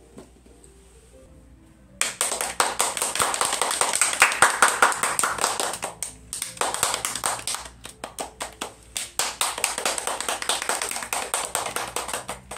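Hand clapping applause that starts suddenly about two seconds in and carries on, with a couple of brief lulls, after the last piano notes have died away.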